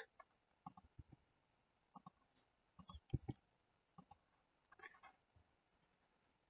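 Faint computer mouse and keyboard clicks, a handful of short sharp ones at irregular intervals over near silence.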